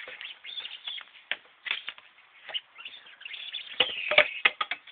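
Akita puppy playing with a spiky rubber ball on a concrete step: scattered light taps and scuffs, then a quick run of louder knocks and thuds about four seconds in.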